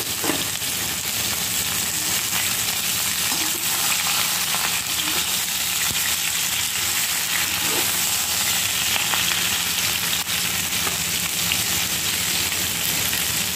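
Pieces of jackfruit frying in hot oil in a kadhai, making a steady sizzle, with occasional light scrapes and taps of a metal spatula stirring them.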